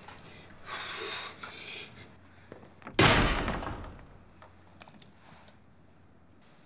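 A heavy cell door bangs shut once about three seconds in, ringing out for about a second, after a brief rustle near the start; a few faint clicks follow.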